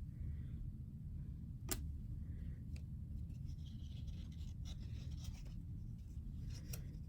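Trading cards being handled and flipped: paper-card rubs and rustles, with one sharp click about two seconds in and several lighter clicks later, over a low steady hum.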